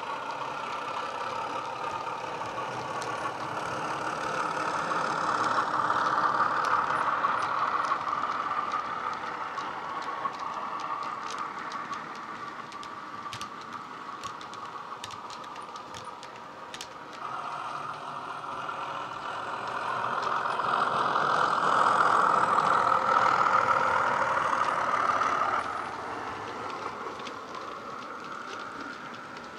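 Class 31 diesel engine sound (English Electric engine) from a LokSound DCC sound decoder, played through the small EM1 speaker inside a Hornby model locomotive hauling wagons. The engine sound swells and eases twice, dropping off suddenly near the end. Light clicks from the wheels on the track come in the middle.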